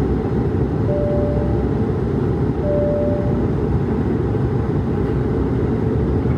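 Steady, low cabin noise inside an Airbus A220-300 in flight, heard from a window seat beside its Pratt & Whitney PW1500G geared turbofan: engine and airflow noise together. Two brief steady tones sound about a second and about three seconds in.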